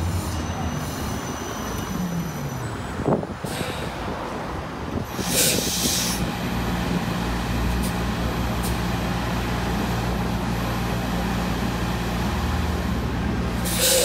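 2018 New Flyer XE40 battery-electric bus pulling in to a stop: its electric drive whine falls in pitch as it slows, with a knock about three seconds in. A short air-brake hiss follows about five seconds in. The standing bus then hums steadily, with another hiss at the very end.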